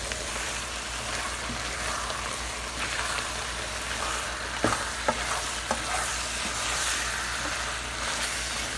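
Wooden spoon stirring rotini pasta and shrimp in a creamy milk-and-cheese sauce cooking in a pot, with a steady sizzle. A few sharp knocks of the spoon against the pot come about halfway through.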